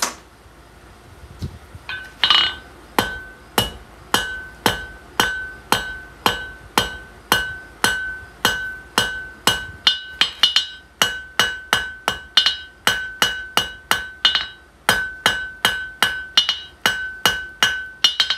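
Hand hammer striking red-hot steel bar on an anvil while forging a nail, a steady run of blows about two a second with a few quick double strikes, each blow leaving a ringing ping from the anvil. The hammering starts about two seconds in and stops at the very end.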